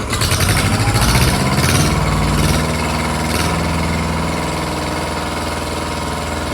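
Ford 1700 compact tractor's three-cylinder diesel engine revving up under load as the front loader lifts a heavy load of lumber near the limit of what it can raise. The engine is louder and rising for the first two and a half seconds, then settles to a steady run.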